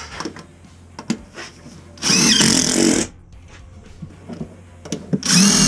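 Cordless drill driving sheet-metal screws into a galvanized smoke-pipe joint on a gas water heater: two runs of about a second each, a few seconds apart, with light knocks of handling between them.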